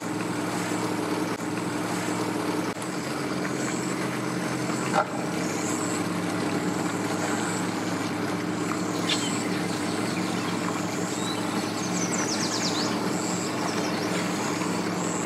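Yamaha SHO V MAX 250 outboard on a bass boat running steadily at idle as the boat motors slowly away from the dock, a constant engine hum.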